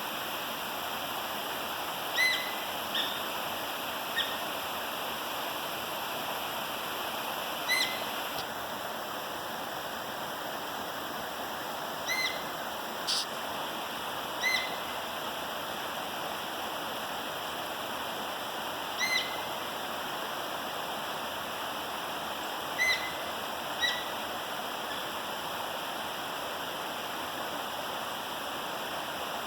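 Sika deer giving short, high-pitched calls, about ten in all, spaced irregularly and sometimes in quick pairs, over a steady rushing background.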